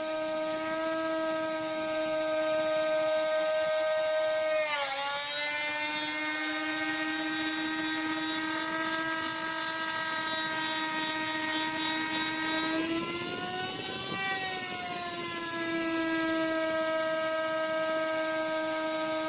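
Rotary tool running as the spindle of a homemade CNC router, giving a steady high whine. Its pitch dips sharply about five seconds in and slowly recovers, then rises briefly around two-thirds of the way through before settling back.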